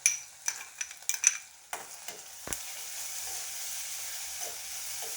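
A spoon clinks and scrapes against a pan, then about two seconds in a steady sizzle starts up: ginger-garlic paste frying in hot oil with onions and green chillies.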